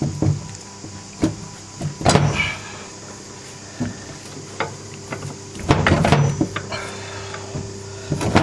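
Scattered knocks and clinks of engine parts being handled and set down during a VW Superbug engine teardown, with a cluster of louder knocks about two seconds in and again near six seconds.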